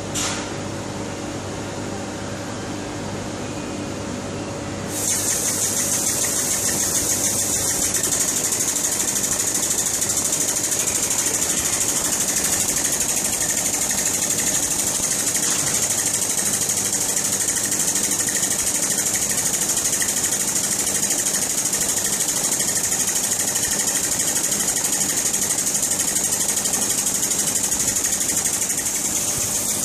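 Small acrylic single-cylinder compressed-air engine running, a rapid, steady mechanical clatter with a hiss of air. About five seconds in, the sound gets louder and the hiss becomes much stronger, then holds steady.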